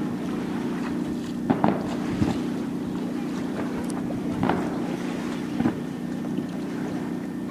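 Steady low drone of an idling boat engine, with four short firework bangs spread through it.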